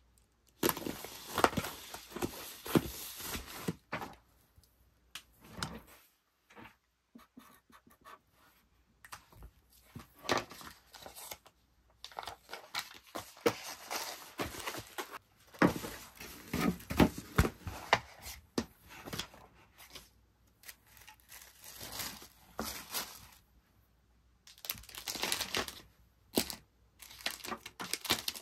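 Hand-packing rustle: a 'handle with care' sticker strip is peeled and pressed onto a plastic bubble mailer and the mailer is handled, then tissue paper and shredded paper filler crinkle in a cardboard box. The sounds come in irregular bursts of rustling and crisp clicks, with short pauses between them.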